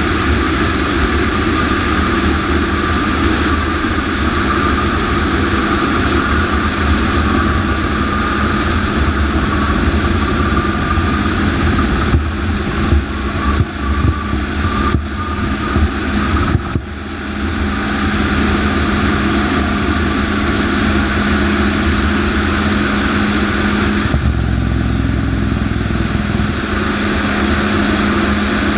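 T-33 jet trainer's turbojet engine running at high power, heard from inside the cockpit during the takeoff roll, with a steady rush and a faint whine that rises slowly in pitch over the first dozen seconds. About halfway through, the sound crackles and breaks up briefly.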